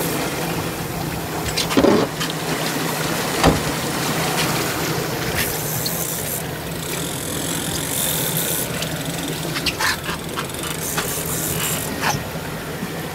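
Boat engine running steadily under a hiss of water against the hull, with a few knocks, the sharpest about three and a half seconds in.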